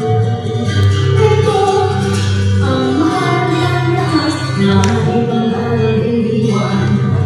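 Music: a woman's voice singing a song over instrumental accompaniment.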